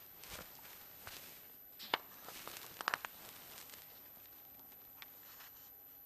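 Sheets of paper being handled on a desk: faint rustling with a few sharp clicks and taps, the loudest about two and three seconds in.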